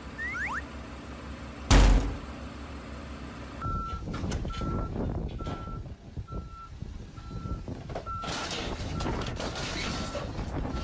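A loud thud about two seconds in over a low engine hum. Then, from about three and a half seconds in, a heavy vehicle's reversing alarm beeps steadily, roughly three beeps every two seconds, over engine noise and clanking.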